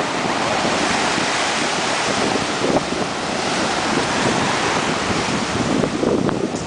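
Ocean surf breaking and washing through the shallows in a steady, unbroken rush of white water.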